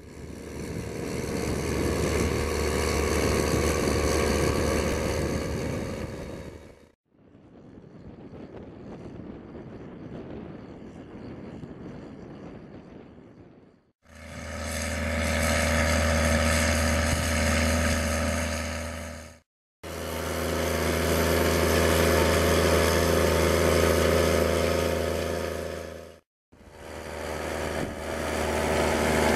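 New Holland T7070 tractor's diesel engine running steadily while pulling a reversible plough through the soil, in a string of short clips with brief breaks between them. The second clip, about 7 to 14 seconds in, is quieter and more of a hiss, without the clear engine hum.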